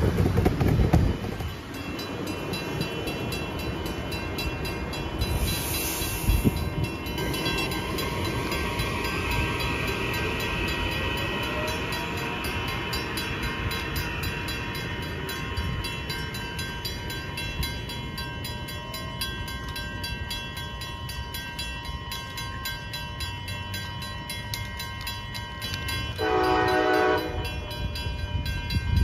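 Kawasaki M8 electric commuter train rumbling past close by at first, then pulling away over a level crossing while the crossing bell rings steadily. Near the end a train horn sounds one blast of about a second and a half.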